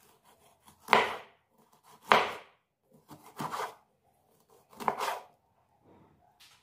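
A large kitchen knife slices a peeled lemon into rounds. Each cut ends in a sharp knock of the blade on a bamboo cutting board, about five cuts roughly a second apart, some louder than others.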